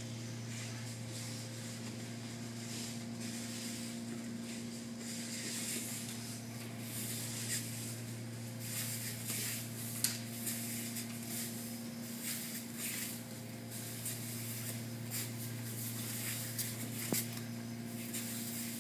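Uniform cloth swishing and bare feet shuffling on the mats as two aikido students grapple, in short uneven bursts with a sharp tap about ten seconds in. A steady low hum runs underneath.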